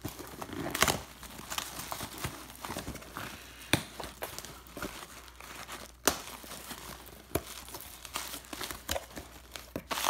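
A cardboard shipping box wrapped in plastic being torn and pulled open by hand: continuous crinkling and rustling of plastic and cardboard, with several sharp cracks as the wrapping and tape give way.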